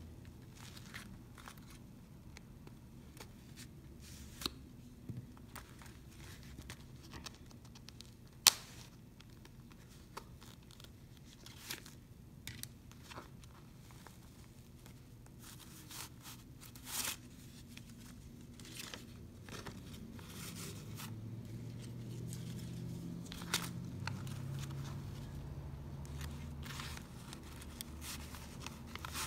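Hands handling a Coach small leather wallet: cards sliding in its card slots and paper dollar bills rustling into the bill compartment, with scattered light clicks and taps, one sharper click about eight seconds in. A low rumble of handling grows louder in the second half.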